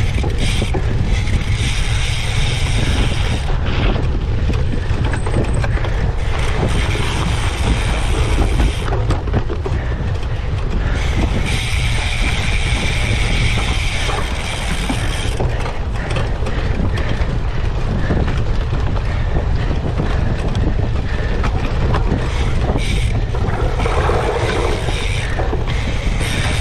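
Wind buffeting the microphone of a cyclocross bike at race speed, with the bike's mechanical rattle underneath; a brighter hiss comes and goes in spells of a few seconds.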